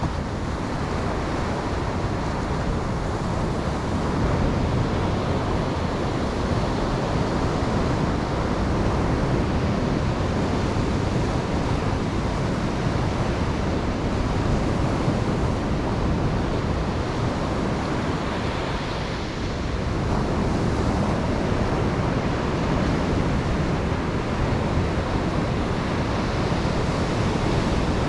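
Ocean waves breaking and washing on a beach, a steady surf with slow swells in loudness, one of them about 20 seconds in.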